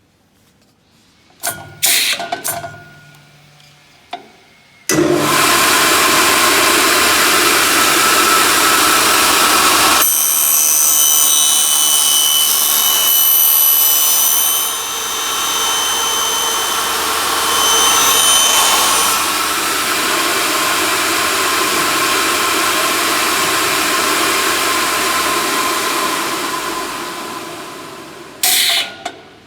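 Graule AKF6 end milling machine running a cycle. A few sharp clanks come first. About five seconds in the cutter drive starts suddenly and runs loudly, and from about ten seconds high whining tones join it as the cutters mill the profile end. The noise then fades as the machine runs down, and a clunk comes near the end.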